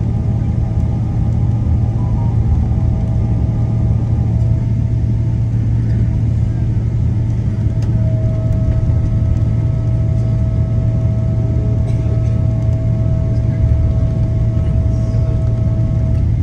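Steady cabin rumble of a Boeing 777 taxiing after landing, its engines running at idle. A thin steady whine sits over the rumble and grows stronger about halfway through.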